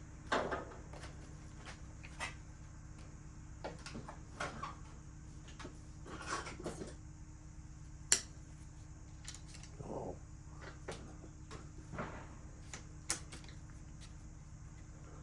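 Scattered clicks, clinks and knocks of hand tools and bike parts being handled, with one sharp metallic click about eight seconds in, over a steady low hum.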